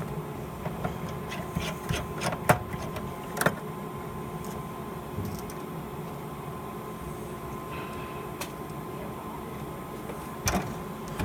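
Scattered clicks and light knocks of small screws and hand tools being handled at a fire alarm panel, over a faint steady hum. The clicks come more often in the first few seconds, with a louder knock near the end.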